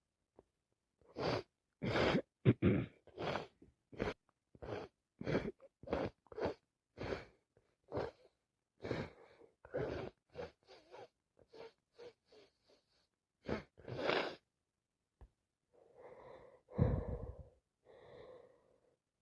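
A woman with sinusitis and a heavy cold sneezing in a rapid, non-stop run of short sneezes, about one every half-second to second. After a brief pause near the end comes one longer voiced sound.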